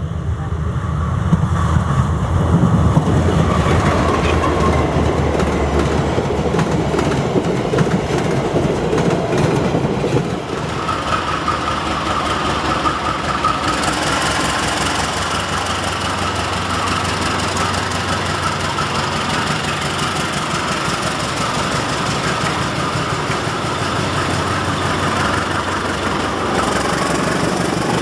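Diesel-electric locomotive running with its train of passenger carriages, a heavy low rumble as it comes past. About ten seconds in the sound changes to the steady hum of a CC 201 locomotive's diesel engine with a steady high whine.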